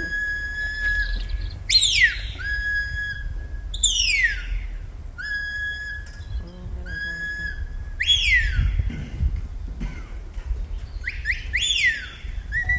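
A sheepdog handler's whistled commands to a working border collie, telling the dog which way to move around the sheep. There is a long steady high note, then a run of sharp falling swoops and short flat notes, ending in two quick swoops.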